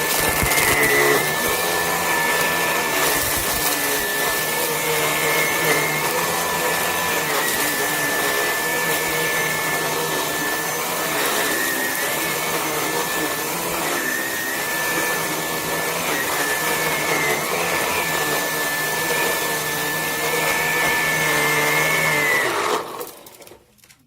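Vax HomePro Plus cordless stick vacuum running on normal power with its motorised brush bar spinning: a steady high whine over the rush of air. It is switched off near the end and winds down to silence.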